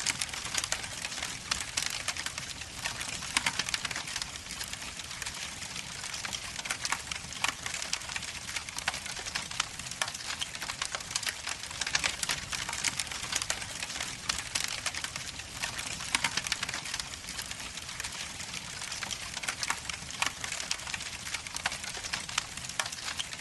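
Crackling fire sound effect: a steady, dense crackle with many sharp pops throughout.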